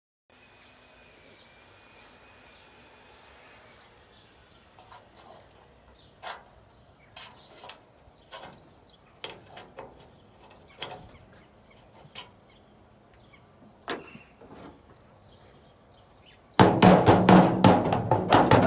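Scattered clicks and knocks of hand work on a car body, then a loud, fast run of knocks near the end.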